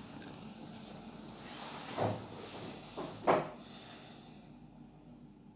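Handling noise and rustling as a camera is set in place by hand and a man settles back into his seat, with two short, louder knocks or rubs about two and three seconds in, then quieting down.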